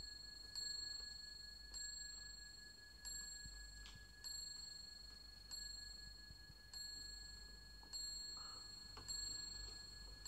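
A faint single bell-like ding repeating at a steady pace, about once every 1.2 seconds, each strike ringing on and fading before the next.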